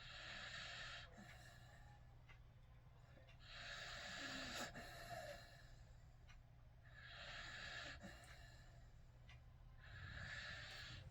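Faint snoring: four airy, hissing snores in a slow, even rhythm, about one every three seconds.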